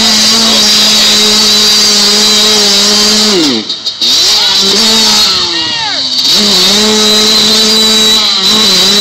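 Small 85cc two-stroke dirt bike engine held at high revs as it churns through deep muddy water, with the revs falling off sharply about three and a half seconds in, picking back up, dipping again about six seconds in and then steadying.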